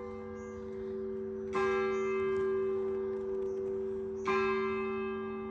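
A large bell tolling slowly, struck about every three seconds, each stroke ringing on long and overlapping the next.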